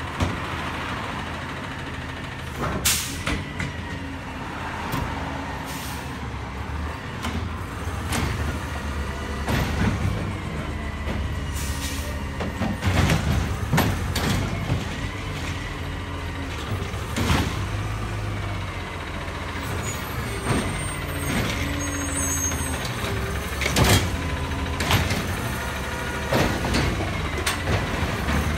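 Automated side-loader garbage truck with a custom Bridgeport split body working the curb: its diesel engine runs steadily while the side arm grabs, lifts and dumps carts, with repeated clanks and bangs of carts and the arm and hisses from the air brakes as it stops and moves on.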